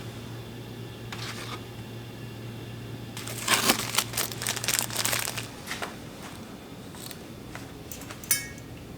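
Crinkling, rustling handling noises, densest and loudest in the middle, while a low steady hum cuts off about halfway; a single sharp click comes near the end.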